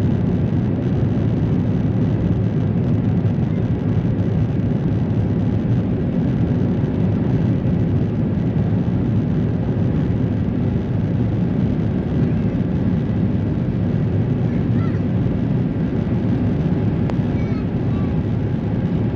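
Steady low rumble of jet engine and airflow noise inside the cabin of an Airbus A350-900 with Rolls-Royce Trent XWB engines, holding an even level throughout.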